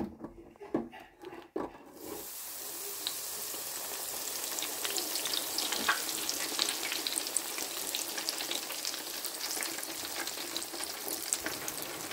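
Battered tempura shrimp deep-frying in hot oil. A few light knocks come first; then, about two seconds in, a steady sizzle with crackling pops starts suddenly as the basket goes into the oil.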